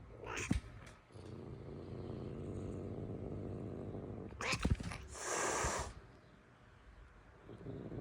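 Angry cat growling, a low steady rumble, broken by a sharp spit near the start and another about four and a half seconds in. The second spit runs into a hiss lasting under a second. The growl starts up again near the end.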